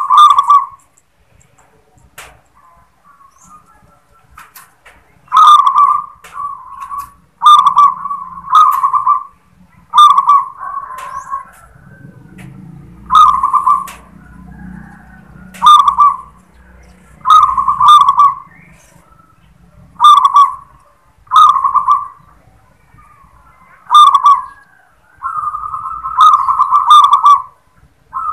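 Local zebra dove (perkutut) singing its 'klar ketek kuk' song: short, loud cooing phrases repeated every second or two with brief pauses, the last one near the end drawn out longer.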